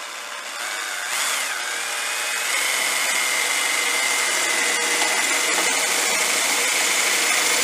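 Cordless drill with a 7 mm bit running steadily as it bores through a cardboard template into the truck's front wing panel, its motor whine settling to one steady pitch about a second in and slowly getting louder as the bit cuts.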